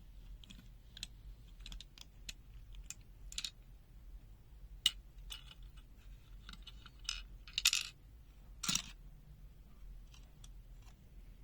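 Small hard parts of a disassembled digital multimeter being handled on a hard surface: irregular light clicks and clinks, with a few louder clinks around the middle.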